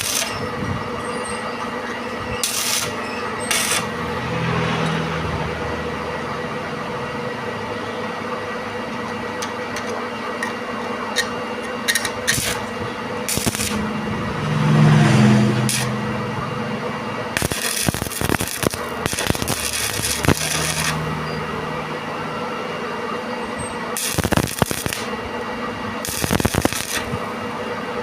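Metal clinks, rattles and scraping of tools and parts being handled, over a steady hum, with a few longer stretches of scraping or grinding noise.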